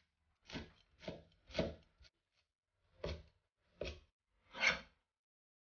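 Cleaver chopping green onions and cilantro on a plastic cutting board: six separate chops, three close together, a pause, then three more, the last the loudest.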